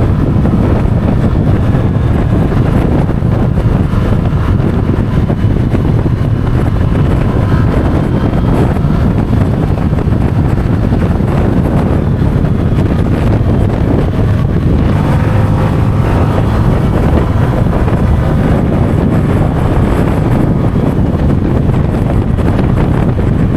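Motorbike engine running steadily at road speed, with wind buffeting the microphone.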